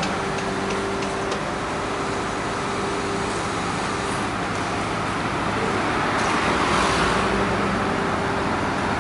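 Road traffic on a busy city street: a steady wash of passing cars with a low, even engine hum underneath, growing a little louder in the second half.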